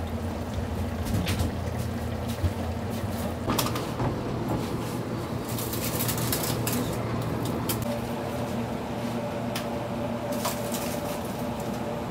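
Kitchen ambience: a steady machine hum from kitchen equipment, with scattered light clinks and knocks of dishes and utensils every second or two.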